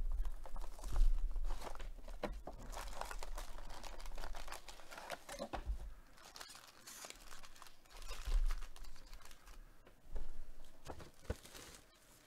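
Plastic wrapping on a Panini Prizm baseball card hobby box crinkling and tearing as it is opened, and its foil card packs rustling as they are pulled out and handled. The crinkling comes in irregular bursts and is loudest in the first couple of seconds.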